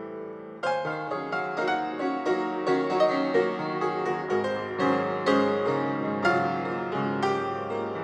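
Background instrumental music led by piano: a melody of struck notes over held lower notes, with a new phrase coming in about half a second in.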